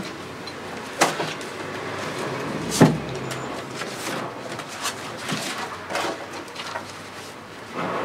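Palette knife scraping and tapping on a wet oil-painted canvas in short strokes, with two sharp knocks about one and three seconds in.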